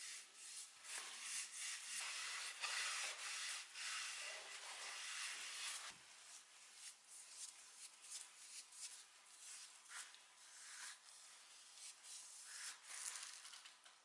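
Abrasive rubbing on wood in irregular back-and-forth strokes, louder for about the first six seconds and lighter after.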